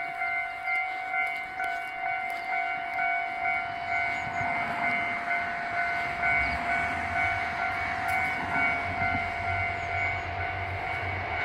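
Japanese level-crossing alarm ringing its repeated electronic "kan-kan" bell tones. From about halfway through, the low rumble of an approaching train grows in underneath.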